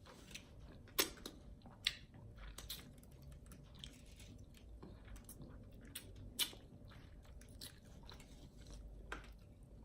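A person chewing crispy fried chicken wings close to the microphone, with irregular sharp crunches and mouth clicks; the loudest crunches come about a second in, about two seconds in, and past six seconds in.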